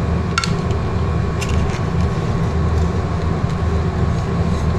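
Steady low kitchen rumble and hum, with a few light clinks of a ceramic plate lid against a steel pot about half a second in and again around a second and a half.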